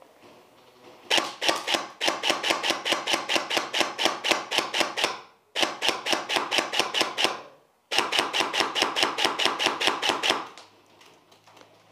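Airsoft gun firing on full auto in three long bursts of rapid, evenly spaced cracks at roughly eight to ten shots a second, with short gaps between them.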